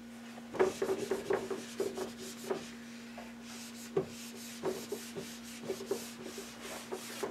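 Whiteboard being wiped clean by hand: a string of short rubbing strokes across the board's surface, some of them squeaking.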